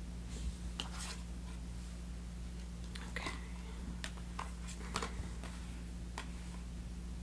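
Tarot and oracle cards being handled and dealt onto a cloth: a scatter of short card flicks, snaps and taps as cards are drawn from the deck and laid down, over a faint steady low hum.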